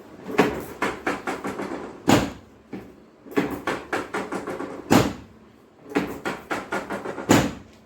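Rapid percussive strikes on a patient's body during manual chiropractic treatment: three runs of quick taps, each ending in one harder hit.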